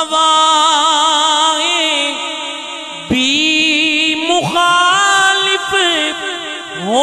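A man's voice singing a naat unaccompanied, holding long wavering melismatic notes without words in two phrases; the second begins about three seconds in.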